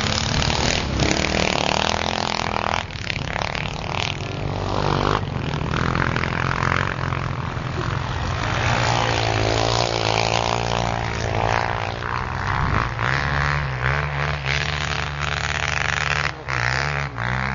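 Off-road motorcycle engines revving up and down under load while towing skiers over snow, with a steady low engine drone underneath.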